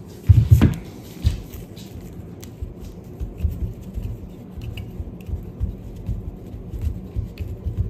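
Old Robin carburetor body being handled and knocked against a newspaper-covered table during reassembly: a couple of heavy dull thumps just after the start, another about a second later, then lighter knocks and small taps scattered throughout.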